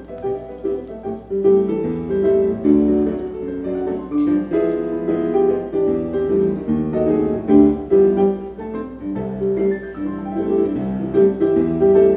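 Piano music playing a steady, unbroken run of notes.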